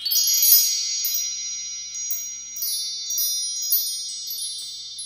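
High metal chimes ringing like wind chimes: a cluster of bright tones keeps sounding and overlapping, with fresh strikes several times.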